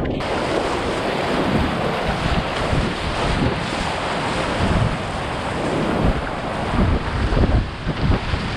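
Steady rushing of river whitewater at the falls, with wind buffeting the microphone in low thumps that grow heavier after about six seconds.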